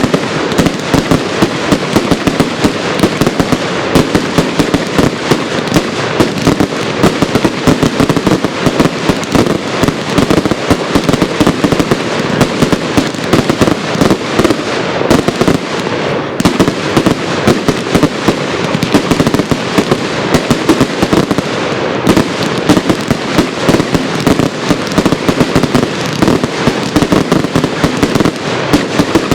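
Firework cakes firing in a rapid, unbroken barrage of bangs and crackles, many reports a second with no let-up.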